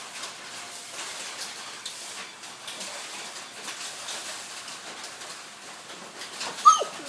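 Wet swishing and splashing of a broom pushing floodwater across a garage floor, in irregular strokes. A short, sharp high-pitched squeak near the end is the loudest moment.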